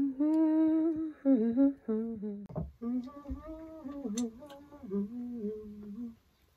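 A woman humming a wordless tune in long held notes that step up and down, stopping about six seconds in, with two light clicks midway.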